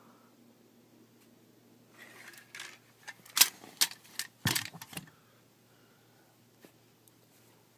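Hard objects being handled: some rattling, then a quick run of sharp clicks and knocks about halfway through, the loudest part.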